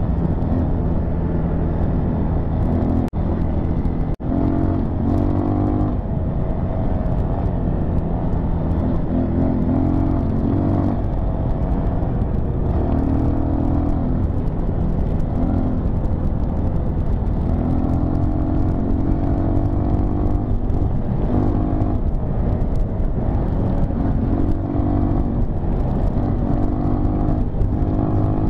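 Dirt bike engine running while being ridden, its revs repeatedly rising and falling with the throttle, over a steady low wind rumble on the microphone.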